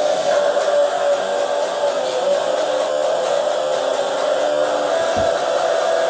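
Electric guitar being played, a dense, sustained sound with a fast, even ticking high above it.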